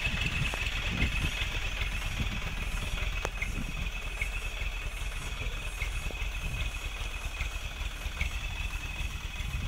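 Engine of a small, heavily loaded cargo truck running at low revs, a steady low rumble. A thin, steady high-pitched tone runs above it.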